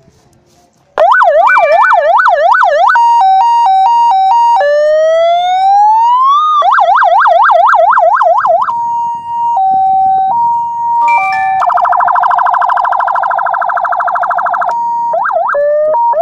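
CJB 150E electronic vehicle siren switching through its tones after about a second of quiet. It plays quick repeated rising sweeps, a hi-lo two-tone, one slow rising wail, more quick sweeps, and a steady tone stepping between two pitches. Near the end comes a rough, fast-pulsing horn tone, then a few short sweeps.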